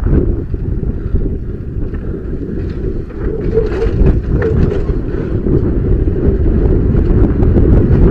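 Heavy wind buffeting the microphone of a helmet camera on a mountain bike descending fast, a dense low rumble throughout, with scattered knocks and rattles of the bike over the rough cobbled surface.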